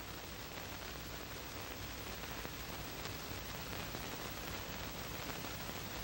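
Steady hiss of an old film soundtrack, with no other sound standing out.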